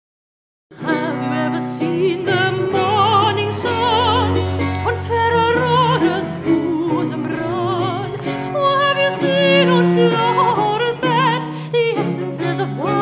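Music starting after a moment of silence: a classically trained singer with a wide vibrato, over steady low bowed-string notes.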